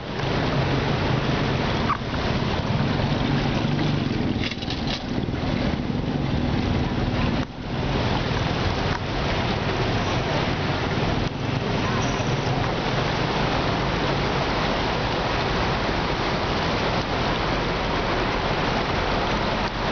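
Floodwater rushing and sloshing along the side of a bus as it wades through a flooded street, a steady wash of water noise, with the bus's engine humming low beneath it for the first several seconds.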